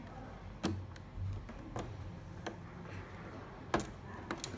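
A few sharp, irregular clicks of a small screwdriver prying at the seam of a coffee machine's plastic casing, metal tip and plastic clips snapping against the panel.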